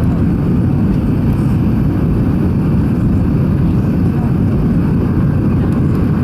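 Steady low rumble of engine and airflow noise inside the passenger cabin of an Airbus A320 airliner.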